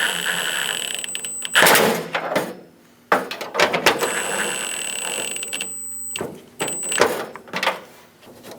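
Cordless power driver running the door handle's mounting nuts down onto the backing plate, its motor whining steadily in three runs with a pause of about a second and a half between the first two, and a few short knocks of the tool against the fitting in the gaps.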